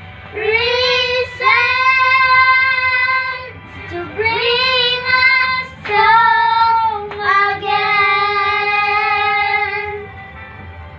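Children singing a Christian worship song together in long held notes, in several phrases, stopping near the end.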